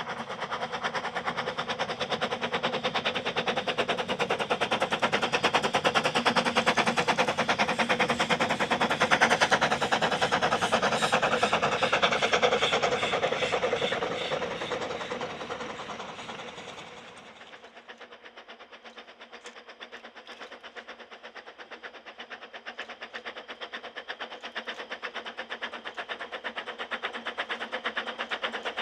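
Narrow-gauge steam locomotive working a train, its exhaust beating in a rapid even rhythm, loudest as it passes and then dying away. About 17 seconds in the sound changes abruptly to a fainter locomotive exhaust beat that grows louder as it approaches.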